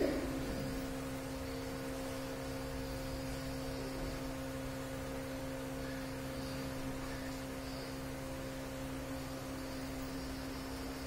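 Steady electrical hum with a constant low tone and a fainter tone an octave above, with a brief falling sound right at the start.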